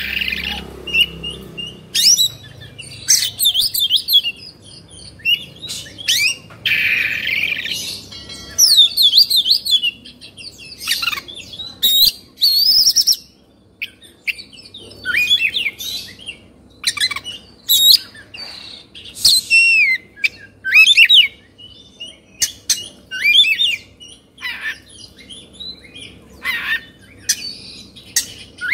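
Oriental magpie-robin (kacer) singing in quick, varied phrases of sweeping whistles and short sharp notes with brief pauses between them. This is the fired-up 'kongslet' song of an agitated, worked-up bird.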